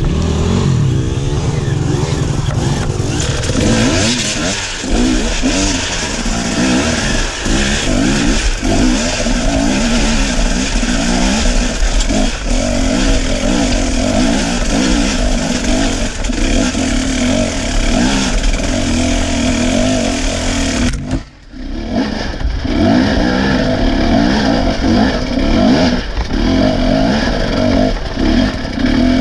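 Enduro dirt bike engine revving up and down unevenly as it climbs a loose, rocky trail, with a brief sharp drop in sound about three-quarters of the way through.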